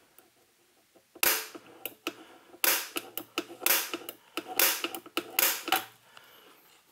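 Spring-loaded automatic center punch snapping against the amplifier's metal chassis top, a series of sharp metallic snaps about once a second starting about a second in. It is punching a fresh mark to re-centre a hole that the drill walked off.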